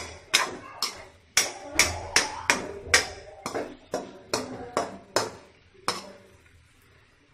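Metal spatula knocking and scraping against a black iron kadhai while stirring vegetables, about two strokes a second, stopping about six seconds in.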